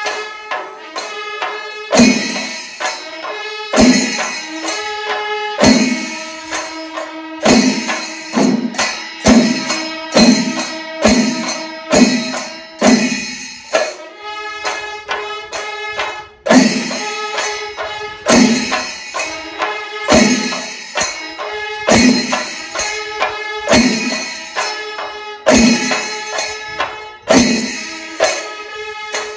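Kerala chenda melam: a large ensemble of stick-beaten chenda drums with elathalam hand cymbals clashing, playing a steady rhythmic cycle with a loud accented stroke about every two seconds and dense strokes in between.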